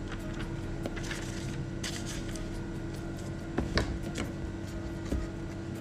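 Paper and cardboard being handled: a sheet of paper rustles about two seconds in, and a few sharp knocks against the box come just before four seconds in, over a steady low hum.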